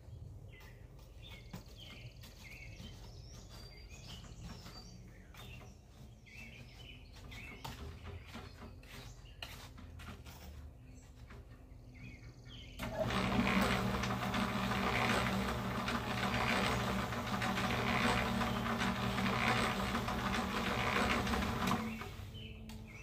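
Small Harbor Freight 1¼ cubic foot electric cement mixer running with a steady hum, birds chirping faintly. About 13 seconds in, a loud rushing noise starts from the mix in the drum and runs for about nine seconds before dropping away near the end.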